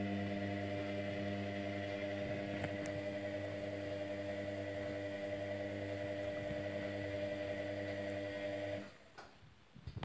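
Indesit washing machine motor humming steadily as it turns the drum through a very sudsy wash. It cuts out about nine seconds in as the drum stops.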